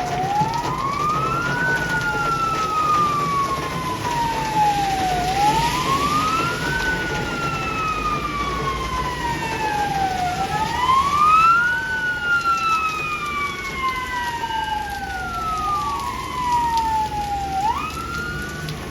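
Fire engine sirens wailing, each cycle rising quickly and falling slowly, about once every five seconds, with a fainter second wail out of step with it. A low engine rumble runs underneath.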